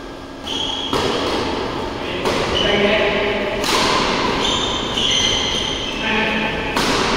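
Badminton rally: about four sharp racket hits on the shuttlecock at uneven intervals, with short, high shoe squeaks on the court floor between them.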